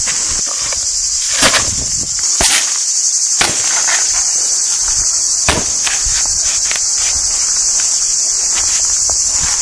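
Steady, high-pitched chorus of insects, with a few sharp knocks and scrapes of a shovel working soil and cement powder on gravel.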